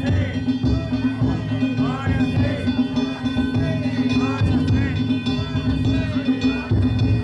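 Danjiri festival float's narimono: taiko drum and hand gongs beating a steady festival rhythm, with voices calling over it.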